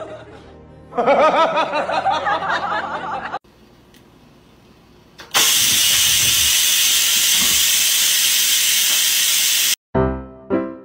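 An electric pressure rice cooker vents steam in a loud, steady hiss for about four seconds, then cuts off abruptly. Before it, a cat meows in long wavering calls and a short lull follows. Just after it, a run of short, evenly spaced musical notes begins.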